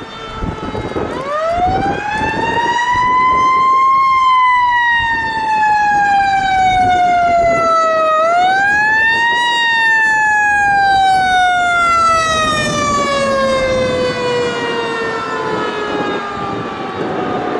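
Fire pumper's Federal Q2B mechanical siren. It winds up to a peak, coasts slowly down, is wound up again about eight seconds in, and then falls away slowly.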